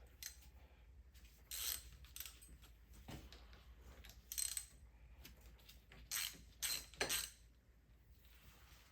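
Light metallic clicks and clatters of hand tools working on metal parts: half a dozen short, sharp bursts with quiet between them.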